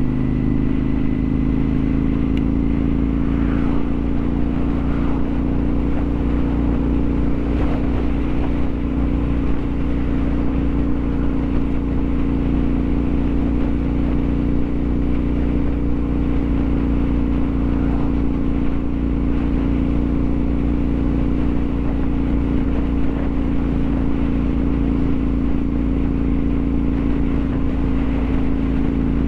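Motorcycle engine running at a steady speed on the move, a constant drone that holds its pitch.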